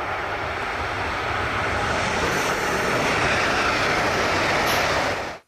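Steady rushing noise of a vehicle going by, a spliced-in sound effect that swells slightly and cuts off abruptly.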